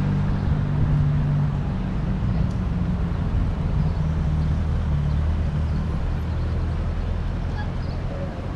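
A motor vehicle's engine running with a steady low hum over street noise.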